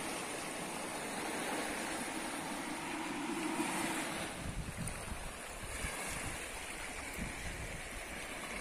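Sea surf washing against a rocky shore, a steady hiss. Wind buffets the microphone in low, uneven gusts from about halfway through.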